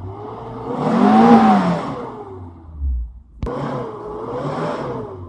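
Car petrol engine running on freshly fitted spark plugs and being revved, its pitch rising and falling: one big rev about a second in, then two shorter revs after a brief dip near the three-second mark.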